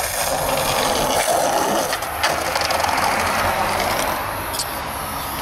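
Skateboard wheels rolling over concrete, a steady rolling noise, with a couple of sharp clacks about two seconds in and another near the end.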